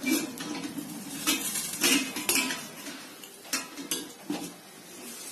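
A plate clinking and scraping against the rim of a popcorn pot as it is slid partly off, in a series of separate clinks.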